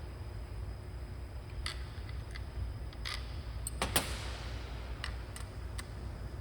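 Scattered light clicks and taps of metal hardware being handled while a valve positioner is fitted to its actuator, about eight in all with the loudest knock about four seconds in, over a steady low hum.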